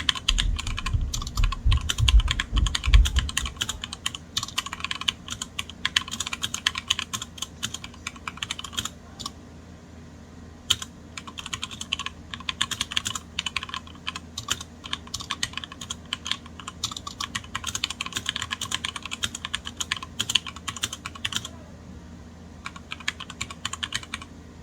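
Typing on a HyperX Alloy Origins Core TKL mechanical keyboard with HyperX Red linear switches and double-shot PBT keycaps: fast runs of key clacks, with deeper thuds in the first few seconds. The typing pauses twice, for about a second each time, and stops just before the end.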